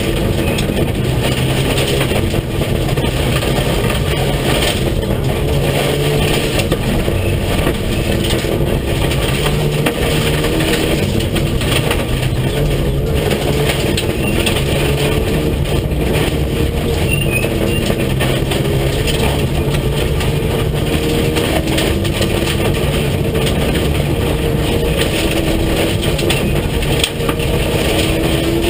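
Rally car engine at full effort on a gravel stage, heard from inside the cockpit: its note repeatedly climbs and drops as it accelerates and shifts, over a steady rumble of tyres on gravel.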